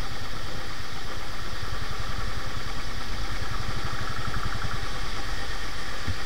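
Single-cylinder motorcycle engine running steadily at low speed as the bike rolls along a rough dirt track.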